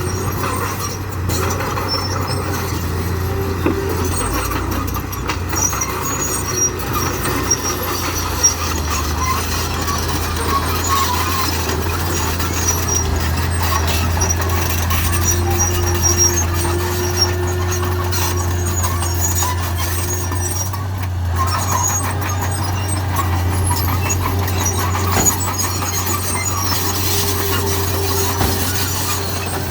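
Steady engine drone of working construction vehicles, with scattered high squeaks and small clicks.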